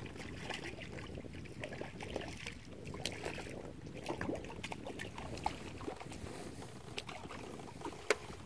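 Faint waterside ambience: a low, even rumble with small water trickles and scattered light ticks, and one sharper click about eight seconds in.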